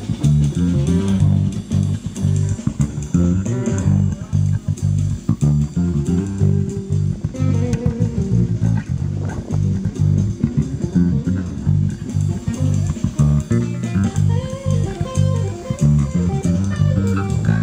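Electric bass guitar playing a fast riff of short, repeated low plucked notes, with a few higher notes about halfway through and again near the end.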